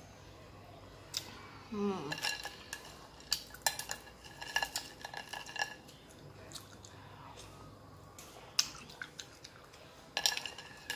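Metal spoon clinking against a glass bowl of chè with crushed ice as it scoops and stirs, in repeated short ringing clinks in two busy spells.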